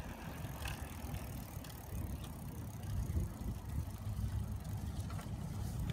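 Riding a bicycle along a concrete path: a low, uneven rumble of wind on the microphone and tyres rolling, with a few faint clicks.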